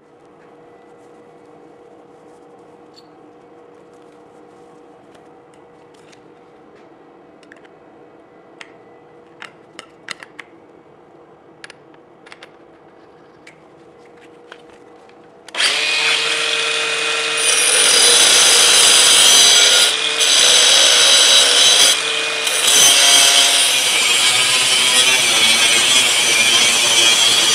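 A cordless angle grinder with a cut-off disc starts suddenly about two thirds in and cuts through rusty square steel tube, running loud and steady with two brief dips as it bites. Before it, a faint steady workshop hum with a few light clicks of tools being handled.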